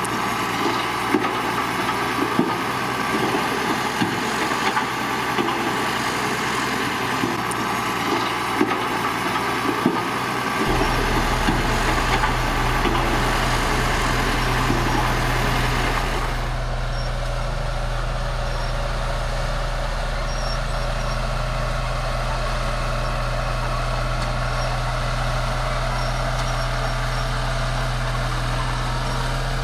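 Heavy diesel earthmoving machinery running, with frequent clanks over the first third. About a third of the way in a steady low hum joins. A little past halfway the sound changes abruptly to a steadier, duller engine note.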